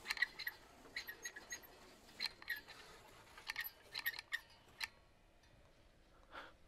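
Slot car chassis with a front motor and drive shafts running a lap of the track: faint, irregular clicks and squeaks that stop about five seconds in.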